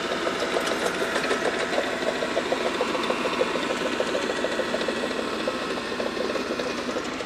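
Dodge truck driving loaded with scrap: a steady, rapid mechanical buzz and rattle of engine and road noise.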